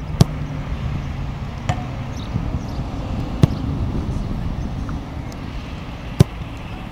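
A footballer striking footballs in succession, each kick a sharp thud: loud ones just after the start, about halfway and near the end, with a fainter knock in between. A steady low rumble runs underneath.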